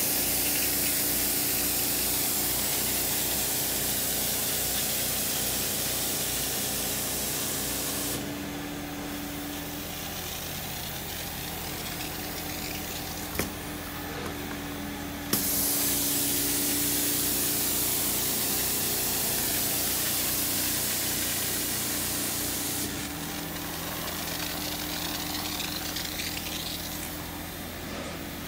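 Janilink portable carpet extractor running steadily, its motor humming as the wand passes over carpet. The water spray hisses loudly for the first eight seconds or so, stops, then hisses again from about fifteen to twenty-three seconds, with the suction running alone in between. A short click comes just as the spray starts again.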